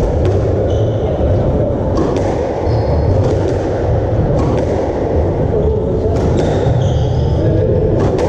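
Squash rally: the hard thock of the ball off racquets and walls about once a second, with short high squeaks of court shoes on the wooden floor, over a steady low background din.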